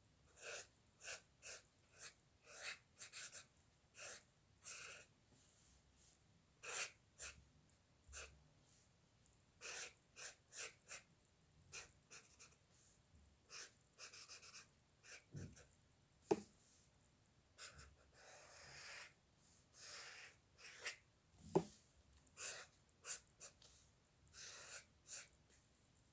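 Quiet pen or stylus strokes and taps on a drawing surface: short scratchy strokes every second or so, some longer, with two sharper clicks.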